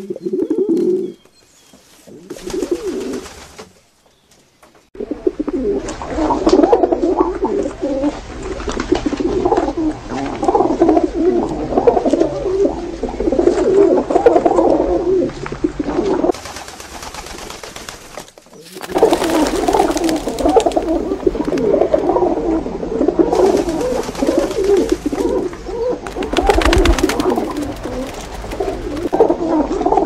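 A flock of feral pigeons cooing, many overlapping coos at once, with brief breaks about four seconds in and again past the middle.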